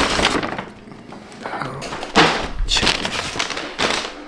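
Paper takeout bag rustling and crinkling in several short bursts as food boxes are taken out of it.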